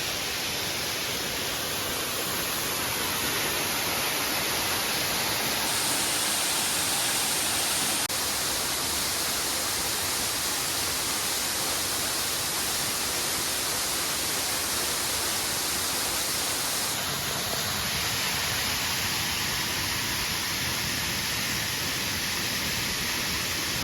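Steady rushing hiss of a waterfall, full and bright, with its tone shifting abruptly about a third of the way in and again later, as between different takes.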